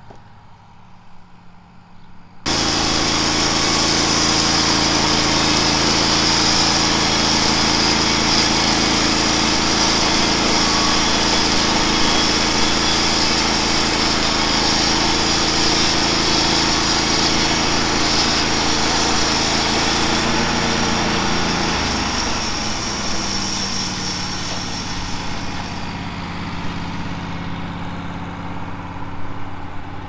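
Wood-Mizer LT15 bandsaw mill sawing a pine log: the mill's engine running under load with a loud, steady hiss from the band blade cutting through the wood, starting abruptly a couple of seconds in. Near the end the cutting hiss fades as the cut finishes, and the engine keeps running at a lower level.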